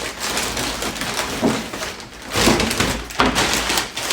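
Irregular rustling and knocking handling noises, with faint voices in the room.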